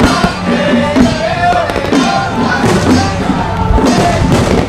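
Aerial fireworks shells bursting in several bangs, heard under loud music with a wavering melody.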